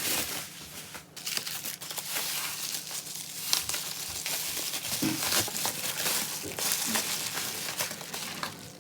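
Packaging crinkling and rustling as albums are handled and unwrapped, with short crackles and some tearing.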